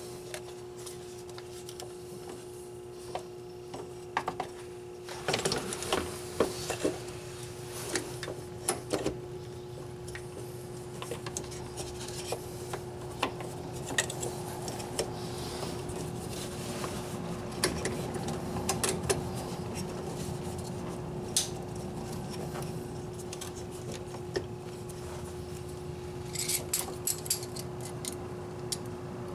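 The plastic EVAP canister vent solenoid assembly being fitted back into place under the car by hand: scattered clicks, knocks and rubs of plastic against metal, with a quick run of clicks near the end, over a steady background hum.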